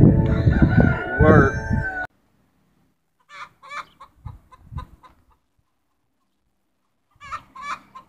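Background music under a voice, cut off abruptly; then a chicken clucking in two runs of short repeated calls with a silent gap between them.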